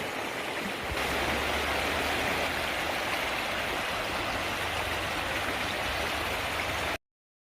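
Valley stream water rushing steadily. The sound gets louder about a second in and cuts off abruptly near the end.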